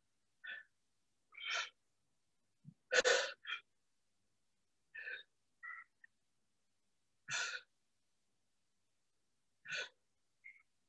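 A person's heavy exertion breathing while doing crunches: short, sharp puffs of breath every second or two, the loudest about three seconds in.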